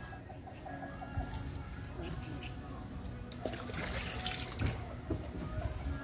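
Running water over a steady low rumble on the microphone.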